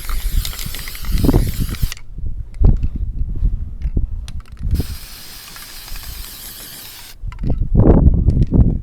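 Wind buffeting the microphone, a strong uneven low rumble with hiss, easing off for a few seconds in the middle and gusting back in near the end.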